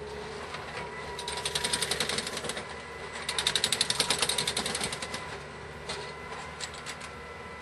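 Rail track maintenance machine working on the track: two bursts of rapid mechanical clatter, each lasting a second or two, over a steady machine whine, with a few single clicks near the end.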